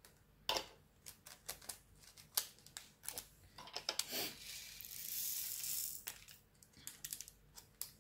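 Small plastic bags of diamond-painting resin drills being handled: scattered clicks and crinkling, with a longer rustle of about a second and a half in the middle, the loudest part.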